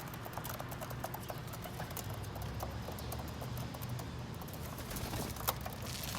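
Pigeons pecking at sunflower seeds on a rooftop: many quick, irregular taps over a steady low rumble.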